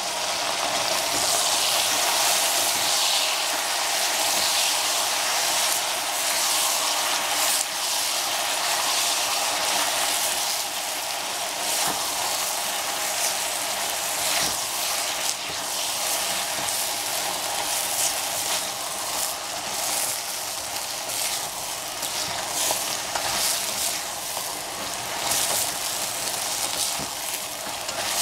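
Bok choy and sugar peas sizzling steadily in a stainless steel pan, stirred with a wooden spatula that gives scattered short clicks against the pan.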